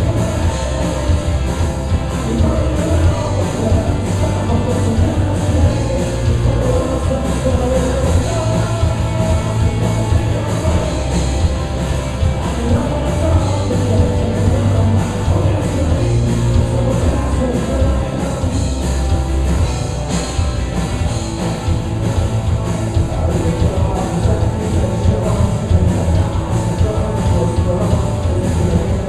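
Rock band playing live: a drum kit keeping a steady beat under loud, dense guitars and bass, with a lead vocal singing.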